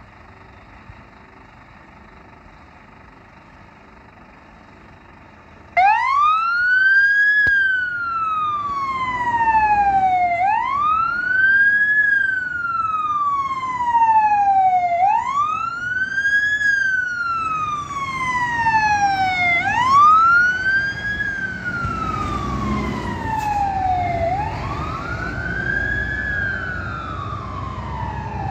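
Scania P320 fire truck's siren switched on about six seconds in, wailing in a repeating cycle of a quick rise in pitch and a longer fall, about once every four and a half seconds, with the truck's diesel engine running underneath as it pulls away.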